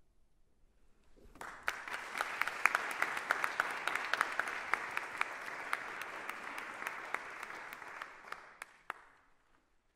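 Audience applauding: a dense crowd of clapping begins about a second in, with individual sharp claps standing out, and dies away near the end.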